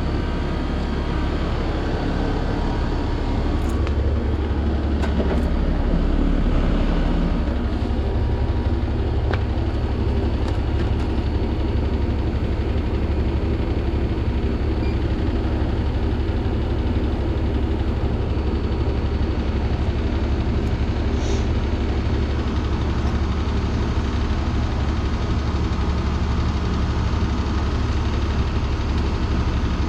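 Newly installed Ruud RP1418BJ1NA outdoor condenser running steadily just after start-up: a deep, even hum from the compressor and condenser fan motor.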